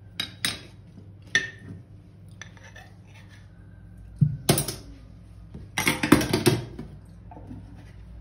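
A metal spoon clicking as it is set down on a wooden chopping board, then dishes and a spoon clattering in two short bursts, the louder one about six seconds in.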